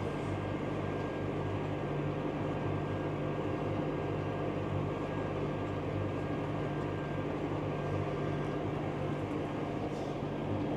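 Tractor diesel engine running steadily under load while pulling a plough, heard from inside the cab.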